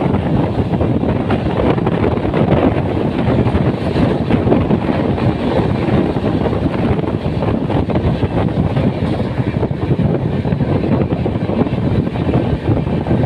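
Passenger express train running at speed: a steady, loud rumble of wheels on rail mixed with rushing wind, unbroken throughout.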